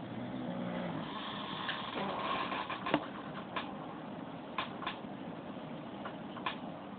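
A sleeping man snoring, with a few short sharp clicks scattered through.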